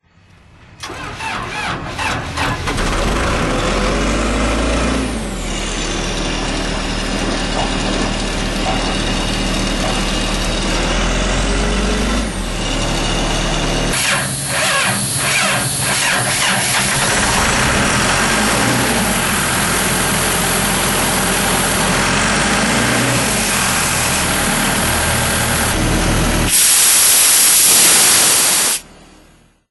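Sullair 375 DPO-JD trailer-mounted rotary screw air compressor: its John Deere diesel engine starts about a second in and runs steadily, its pitch rising and falling slowly now and then. About halfway through, a loud rush of air joins the engine and grows louder near the end, before the sound cuts off suddenly.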